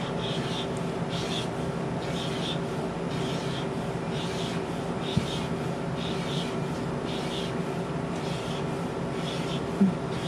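Fat-tip alcohol marker stroking across cardstock paper in short, repeated rasping strokes, about one a second, over a steady background hum.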